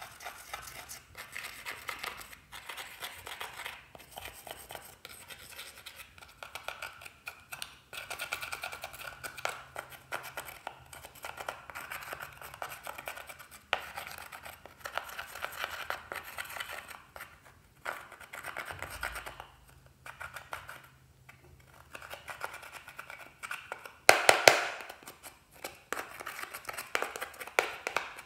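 A metal pick tool scraping pressed eyeshadow powder out of the pans of a compact palette: a rapid, dry scratching in runs with brief pauses, louder near the end.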